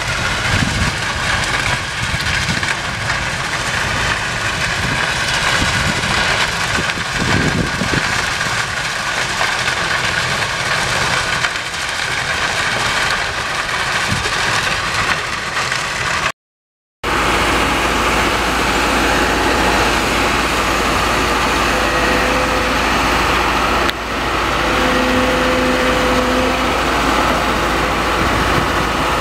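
Railway ballast regulator's diesel engine running as its rotating broom sweeps the ballast, a loud, steady, dense noise. After a sudden cut about halfway through, a second track maintenance machine's engine runs steadily.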